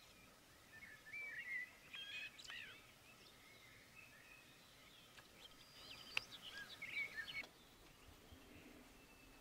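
A songbird singing in two spells of short twittering phrases over a quiet outdoor background, with a single sharp tick in the second spell.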